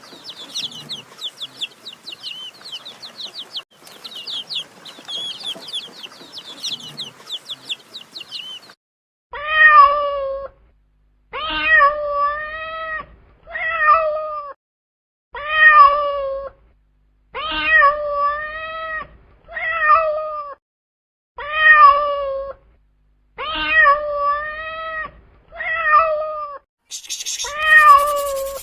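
Rapid high-pitched chirping for about nine seconds, then a cat meowing over and over, about a dozen drawn-out meows roughly one to two seconds apart. A brief hiss comes near the end.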